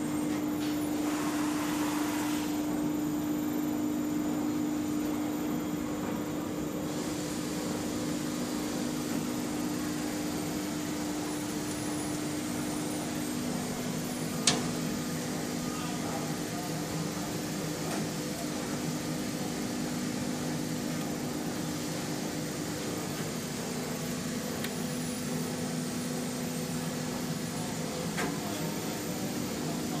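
Steady machine hum from running electrical equipment, a low drone with several held tones under a haze of noise, with a single sharp click about halfway through.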